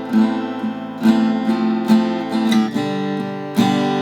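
A freshly restrung Fender acoustic-electric guitar being strummed, with chords left to ring between strokes. A handful of strums come about a second apart, and a new, lower chord comes in near the end.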